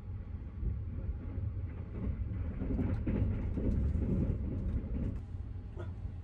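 Sunrise Izumo overnight sleeper train, a 285 series electric train, running along the line, heard from inside a compartment: a steady low rumble that swells louder for a couple of seconds midway, with a few faint clicks.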